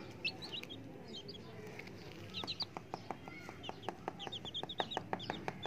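Baby chicks peeping in short high chirps, a few early on and coming thick and fast from about two-thirds in, with a run of quick taps from their beaks pecking at the concrete.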